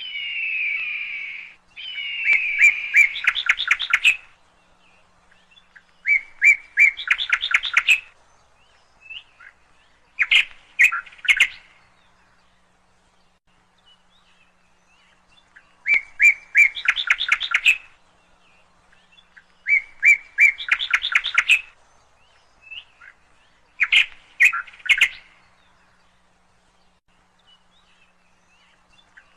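A bird singing the same short phrase over and over, a quick run of notes about two seconds long repeated roughly every four seconds, with a longer pause around the middle.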